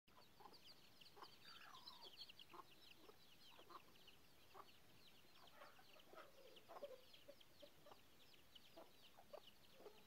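Faint Aseel chicks peeping rapidly and without pause, a steady stream of thin high cheeps, with a hen's lower soft clucks now and then.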